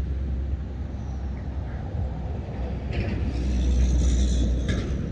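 Low, steady rumble of road traffic passing on a nearby bridge. About three seconds in, a brief higher hiss with a thin whine rises over it for under two seconds.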